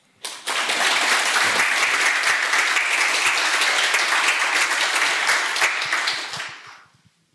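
Audience applauding: many people clapping, starting just after the beginning, holding steady, then dying away near the end.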